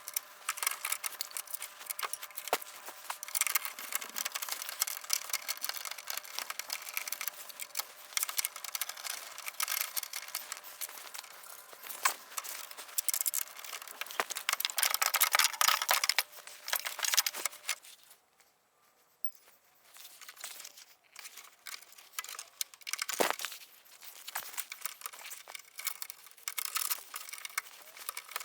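Hands fitting small bolts and a plastic diffuser fin: dense, irregular clicking, rattling and rustling of hardware and plastic. It falls almost silent for about two seconds around two-thirds of the way in, and a single sharper knock follows.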